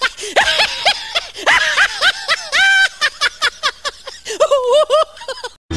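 A high-pitched human laugh used as a sound effect, in rapid repeated bursts, cut off suddenly near the end.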